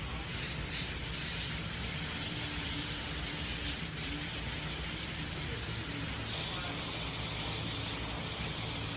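Steady hiss of air spraying, as from a compressed-air spray or blow gun in body work, louder for about the first six seconds and then softer, over a steady low hum.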